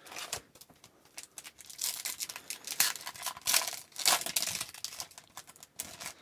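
A foil trading-card pack wrapper crinkling and tearing as a pack of hockey cards is opened, in a run of short crackles with several louder tears in the middle.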